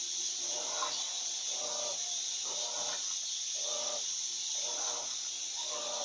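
Electrolux LT12F top-loading washing machine agitating a load of bedding in high water. A short whine comes from the motor and drive with each agitator stroke, about once a second, over a steady rushing hiss.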